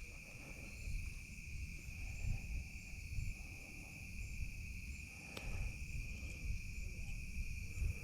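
Steady, continuous chorus of insects such as crickets trilling at one high pitch, over a low rumble. A single sharp click comes about five seconds in.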